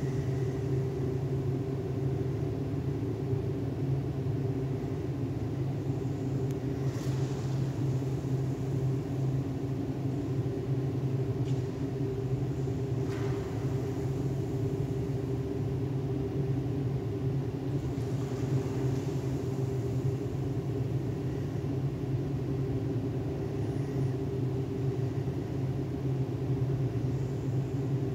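Steady machinery hum and rumble: a constant low drone with a steady higher tone above it, not changing in pitch or level, with a few faint clicks.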